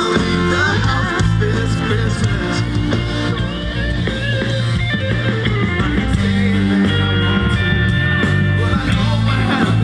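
Band music with guitar over a steady bass line: an instrumental stretch of a Christmas song, with no vocal line.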